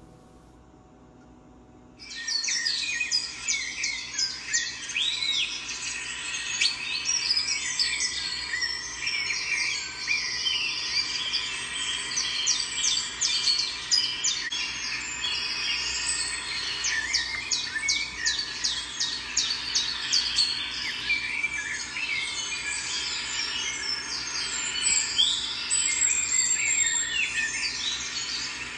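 Many birds chirping and singing at once, a dense chorus of short high chirps and trills that starts suddenly about two seconds in and keeps on steadily.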